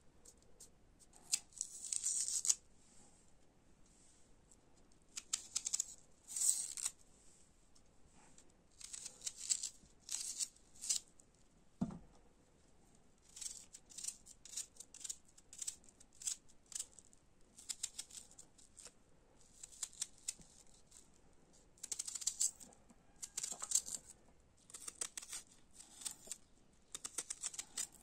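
Small kitchen knife cutting raw onion held in the hand: irregular crisp slicing and scoring strokes, several in quick clusters, with one dull knock about twelve seconds in.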